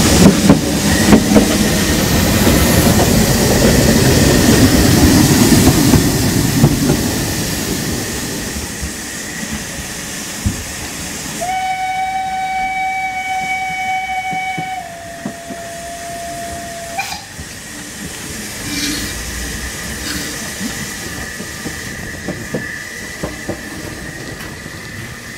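Saxon IV K narrow-gauge steam locomotive running with loud rail clatter, fading after about seven seconds. About eleven seconds in, its steam whistle sounds one long blast of about five seconds, dropping slightly in pitch before it stops. Steam then hisses softly as the engine stands.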